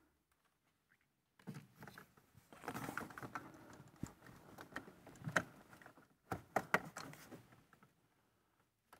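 Faint handling noise of a plastic clamp meter being fitted around a battery cable: irregular light clicks and rustling, with a sharper click a little past the middle and a short cluster of clicks near the end.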